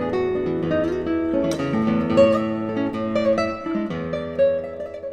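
Background music of acoustic guitar, plucked and strummed notes, beginning to fade out near the end.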